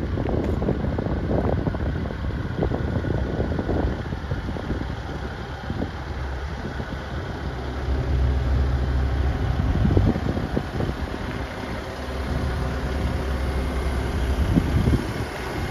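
Diesel engine of a Link-Belt 145X4 excavator idling with a steady low hum, with gusts of wind buffeting the microphone.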